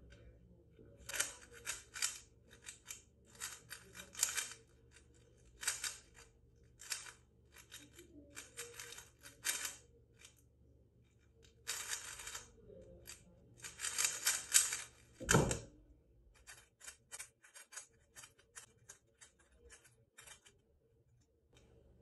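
A 3x3 speed cube being turned fast: rapid plastic clicking and clacking in bursts with short pauses between them. About fifteen seconds in there is one solid slap as the hands come down on the stackmat timer's pads to stop it. Lighter, scattered clicks of the cube being handled follow.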